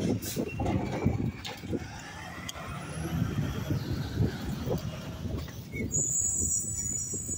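Mack LR garbage truck's engine running as it drives down the street, with a high-pitched brake squeal starting about six seconds in as it slows.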